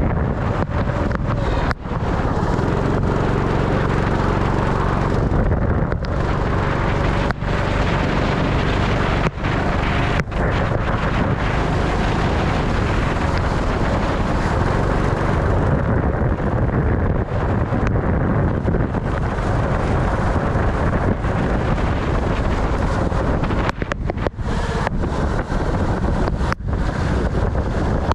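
Sprint kart engine running on track, its note steady for stretches, with wind noise on the microphone and a few brief dropouts.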